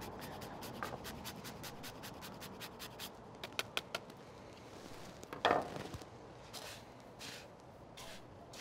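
Hard Parmigiano-Reggiano cheese rasped on a handheld microplane grater over a wooden bowl: quick, faint scraping strokes, several a second, for about the first three seconds, then fewer. About five and a half seconds in there is one louder knock.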